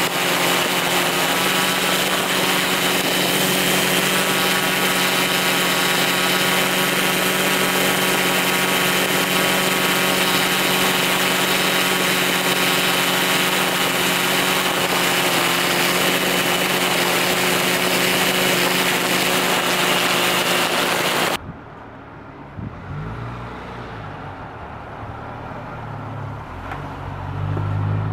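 DJI S800 octocopter's motors and propellers whirring steadily, recorded from the camera it carries: a loud, even whine with a high tone over a rushing hiss. About three-quarters of the way through it cuts off abruptly, giving way to a quieter low rumble of street traffic engines that swells near the end.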